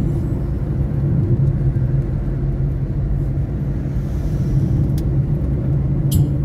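Steady low rumble of a car driving along a road, its engine and tyre noise heard from inside the cabin. Music with a regular beat comes in near the end.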